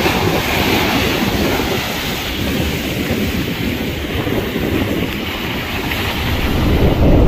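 Wind buffeting the microphone over the steady rush of surf on the beach, growing louder near the end.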